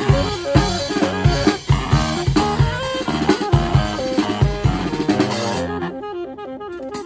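Live street-band music: a drum kit with snare and bass drum keeping a steady beat under the horns. Near the end the drums drop out and the horns carry on alone, a little quieter.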